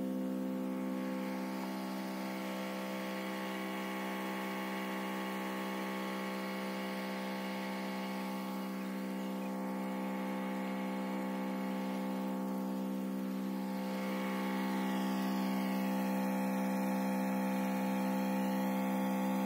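Battery-powered knapsack sprayer's electric pump running with a steady hum, pushing fungicide into a drip irrigation line; a little louder in the last few seconds.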